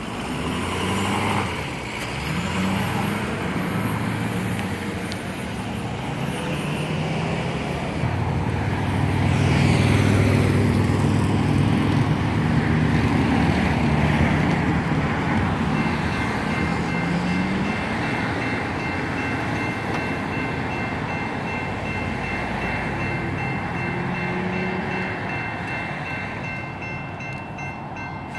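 Road traffic passing, cars and trucks going by, loudest about a third of the way in. A bit past halfway, the crossing's General Signals Type 2 electronic bell starts ringing and keeps ringing, warning of an approaching light-rail train.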